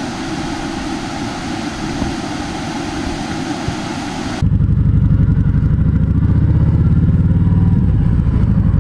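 Steady rush of a small waterfall, cut off abruptly about four and a half seconds in by a Kawasaki Voyager 1700's V-twin engine running steadily.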